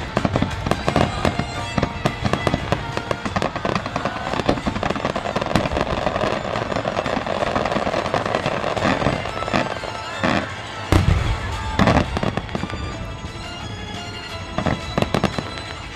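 Aerial fireworks barrage: dense, rapid crackling and popping, with two heavy shell bursts about eleven and twelve seconds in.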